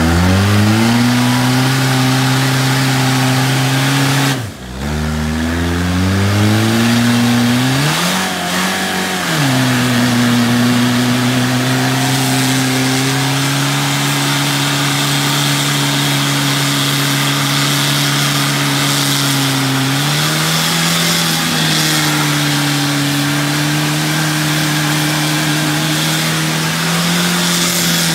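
An off-road trial vehicle's engine revving hard. The revs climb, drop sharply about four seconds in, and climb again. After a brief dip they are held steady and high for most of the rest, with small rises.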